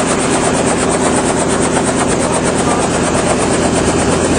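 Helicopter running, a loud steady engine and rotor drone with a constant hum.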